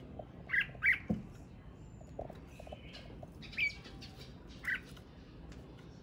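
Male red-whiskered bulbul in a cage giving short, sharp notes with pauses between them: two in quick succession just after half a second in, then single ones in the middle and about a second later. A light knock sounds about a second in.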